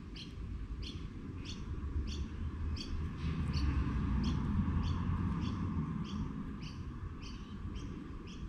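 A small bird chirping over and over, short downward-sliding chirps at about two a second, over a low rumble that swells in the middle.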